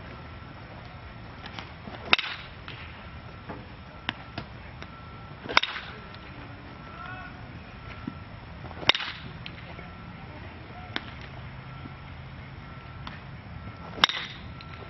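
A bat hitting a ball: four sharp cracks a few seconds apart, with fainter clicks in between.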